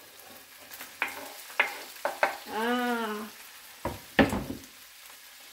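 Tuna and olives being stirred in a frying pan of hot olive oil: a faint sizzle with several sharp knocks of the utensil against the pan. A short tone rises and falls about halfway through.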